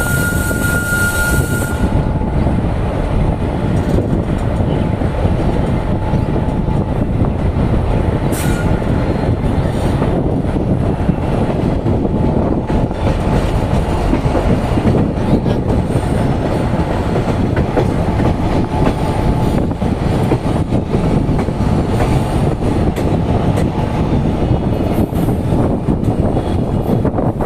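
Train running on the tracks: a loud, steady rumble of wheels and carriages. A brief high steady tone sounds in the first two seconds and again about eight seconds in.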